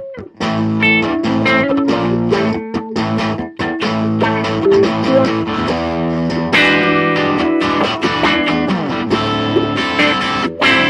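Three amplified electric guitars played together in a live jam, strumming chords and picking riffs, with a short break just at the start before the playing resumes.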